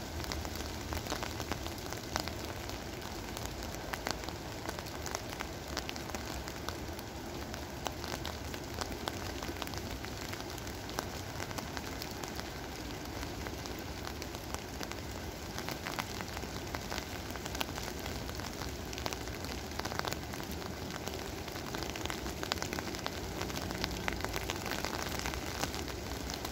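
Very quiet, steady rain falling, with many small drops ticking irregularly on surfaces.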